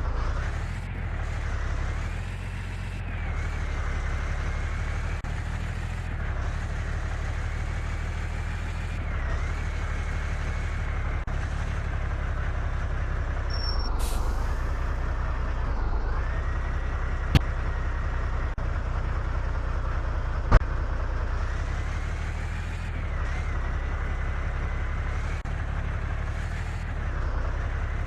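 Remote-control model truck driving: a motor whine that rises and falls with the throttle over a steady low drone. A brief hiss comes about halfway through, and two sharp clicks follow a few seconds later.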